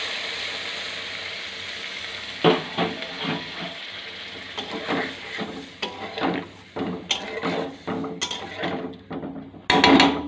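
Hilsa curry frying in a metal kadai, the sizzle dying away over the first couple of seconds. After that a metal spatula stirs and scrapes the pan in an irregular run of clinks and knocks, loudest near the end.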